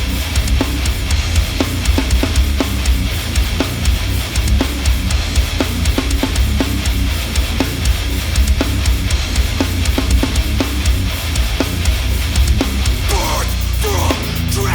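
Heavy, distorted metal music: thick, loud low-end guitar and bass with evenly spaced drum hits. Near the end the texture shifts, and short squealing, sliding sounds come in.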